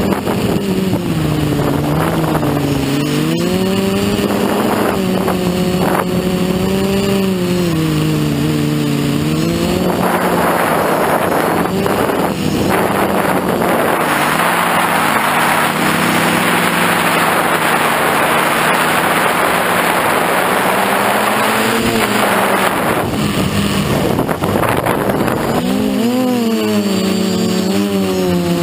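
Quadcopter's brushless motors (KEDA 2210 1200kv) spinning 9-inch APC props, heard from the onboard camera as a whine whose pitch rises and falls with the throttle. From about ten seconds in until about twenty-three seconds a loud rush of wind covers the motors, and the whine comes back clearly near the end.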